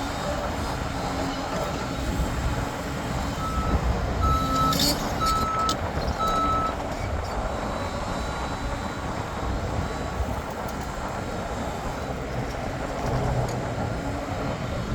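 Diesel engines of an excavator and dump truck running steadily, with a reversing alarm beeping four times, about once a second, a few seconds in. A brief hiss comes during the beeps.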